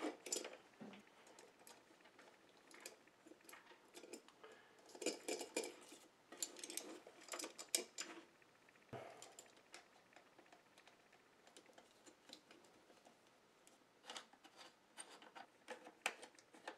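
Faint clicks and clinks of small metal hardware being handled, in several short clusters: wing nuts being threaded by hand onto the bolts that hold an aluminum bracket to a transformer.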